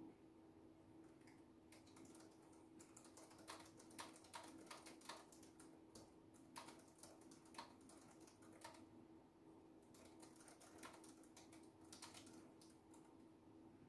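Quiet typing on a laptop keyboard: quick runs of key clicks with short pauses between bursts, over a faint steady hum.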